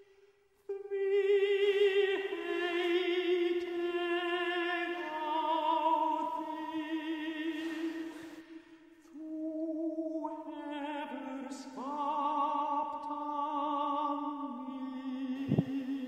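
Slow background music of long, held notes with vibrato in an opera-like style. It starts about a second in and pauses briefly near the middle.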